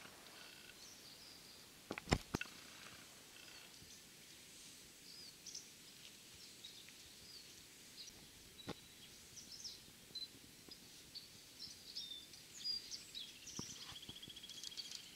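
Faint morning birdsong: scattered chirps and whistles from several small birds, with a rapid buzzing trill near the end. A sharp knock about two seconds in and a smaller one later are the loudest sounds.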